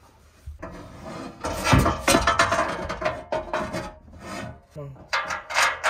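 Metal cargo rack being worked into place in a Jeep's cargo area: rubbing and scraping with short knocks, loudest just under two seconds in, then more broken scrapes.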